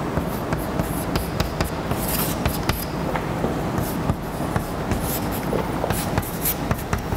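Chalk writing on a blackboard: an irregular run of sharp taps and short scratchy strokes over a steady low hum.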